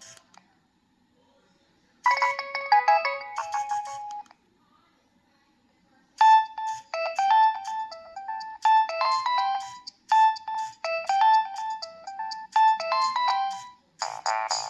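Preloaded Nokia 3120b ringtones playing one after another: a short electronic jingle about two seconds in, then, after a pause, a longer melody of quick notes repeating its phrase, and a different tone starting near the end.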